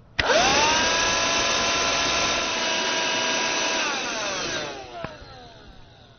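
Corded handheld vacuum cleaner switched on: its motor whine rises quickly to a steady pitch and runs for about three and a half seconds, then falls away as the motor spins down, with a click as it dies out.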